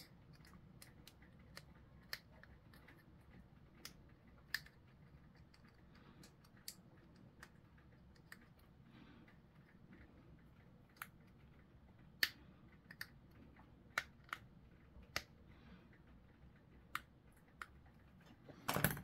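Faint, irregular small clicks and taps of hobby tools and plastic model-kit parts being handled and trimmed over a cutting mat, with a short louder clatter near the end.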